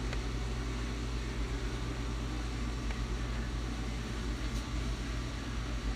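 Dishwasher running mid-wash-cycle: a steady low hum with an even wash of water noise. It was run with hand dish soap and is overflowing with suds.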